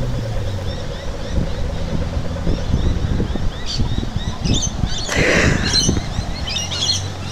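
Outdoor roadside ambience: a car's engine hum dies away in the first second, then wind buffets the microphone with low, uneven rumbles. Birds chirp throughout, with a brighter flurry of calls about halfway through.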